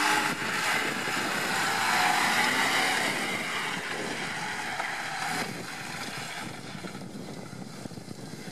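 Off-road 4x4's engine running hard as it drives the course, loudest in the first few seconds and fading from about halfway through.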